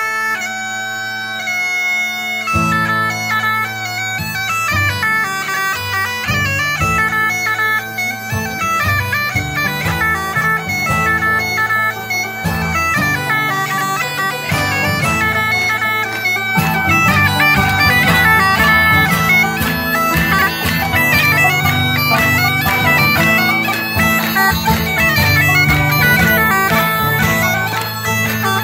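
Bagpipes playing a fast folk tune over their steady drone. About two and a half seconds in, the band's guitar accompaniment joins in beneath the melody.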